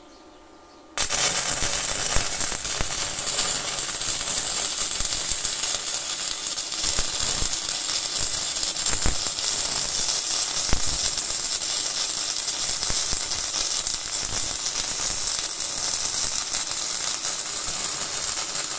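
Stick (MMA) welding arc from a twin electrode, two 2 mm rods burning together at about 160 A, laying a fillet weld on steel plate. The arc strikes about a second in and then burns steadily with a dense crackle and scattered pops, throwing heavy spatter.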